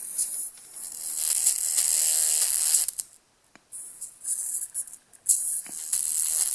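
Tiny earbud speaker driver overdriven until it fails, giving a harsh, hissy, rattling buzz. The buzz comes in stretches, dropping out briefly about three seconds in and again near five seconds.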